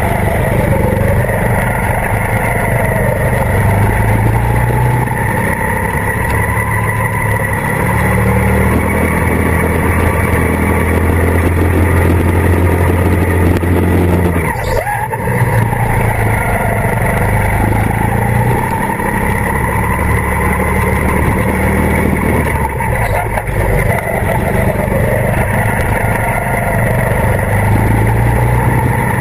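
Go-kart engine running hard at high revs, its pitch stepping up and down. It eases off briefly about halfway through and again later, then picks up again.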